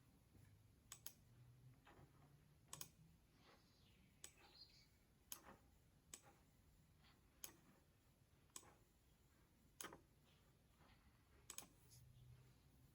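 Faint, sharp computer mouse clicks, about eight of them spaced irregularly a second or two apart, a few in quick pairs, over near-silent room tone.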